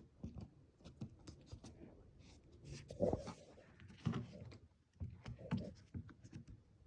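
Faint scattered clicks, taps and rubbing as a car's interior windshield trim piece is handled and pressed against its retaining clips, which it keeps catching on.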